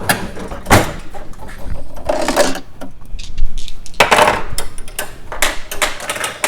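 Several knocks and clattering bumps, a second or two apart, from handling a pinball machine's mechanism and cabinet.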